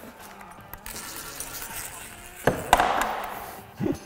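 Metal hardware clinking as a loosened roll-cage bolt and a wrench are handled, with a couple of sharp clinks about two and a half seconds in, a short rattle after them and another knock near the end.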